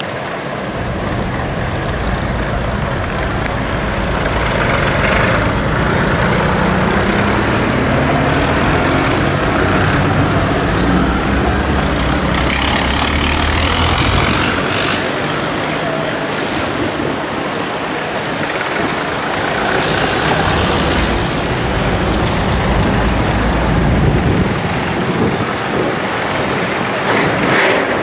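Tractor engines running as tractors pull away one after another. There is a low rumble, and one engine rises in pitch as it speeds up a few seconds in.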